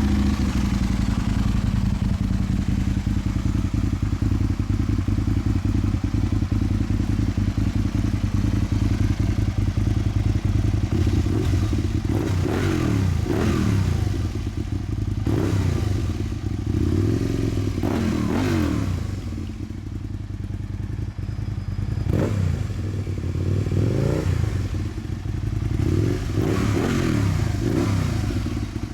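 Aprilia Tuono's V-twin running through Leovince pipes with the baffles removed. It idles steadily, then is revved in a series of rising and falling blips through the second half.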